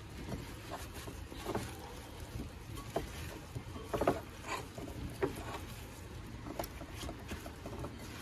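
Halved, oil-coated potatoes being tossed by hand in a glass bowl: an irregular string of soft knocks and clicks as the pieces tumble against each other and the glass, a few louder knocks in the middle.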